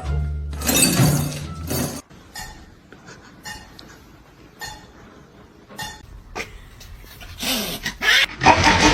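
Sounds of a pet animal: a loud low stretch at first, then scattered short noises with quieter gaps, and a loud, noisy stretch near the end.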